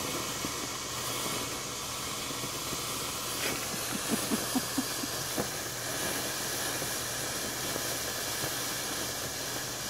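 Ground fountain firework spraying with a steady hiss; a higher part of the hiss drops away about a third of the way through.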